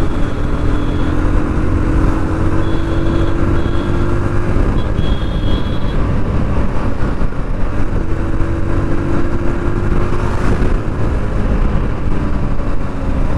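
Wind buffeting a lavalier microphone on a moving motorcycle, a steady heavy rumble, with the bike's engine running underneath and its pitch rising slowly twice as it speeds up.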